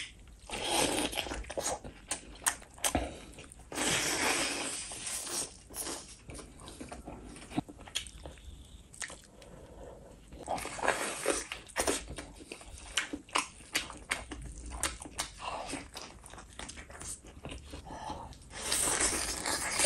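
Close-up eating of curry-coated chicken by hand: meat torn off the bone and bitten, with wet chewing, crunching and many sharp clicks of the mouth. Denser stretches of tearing and chewing come in several spells, one near the end.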